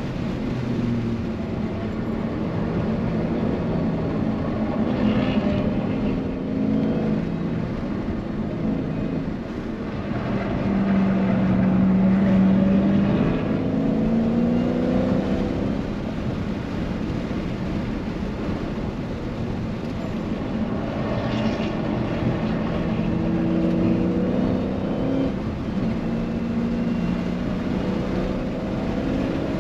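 Dodge Challenger's V8 engine at racing speed, its pitch climbing under hard acceleration and dropping as it slows for corners, loudest about a third of the way in.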